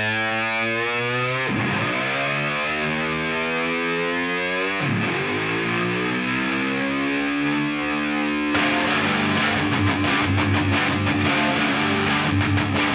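Heavy metal music: a distorted electric guitar holds long chords whose pitch dips and swoops back up twice. About two-thirds of the way in, drums and bass come in with the full band.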